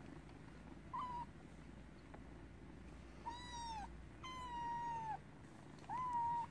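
Cat meowing four times: a short mew, then three longer high calls that sag in pitch at their ends.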